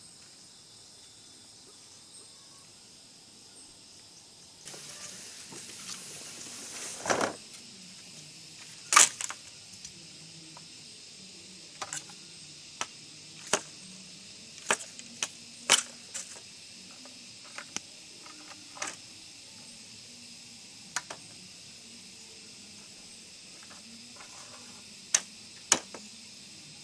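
A machete striking earth and brush in about a dozen sharp, irregularly spaced chops, over a steady high drone of jungle insects.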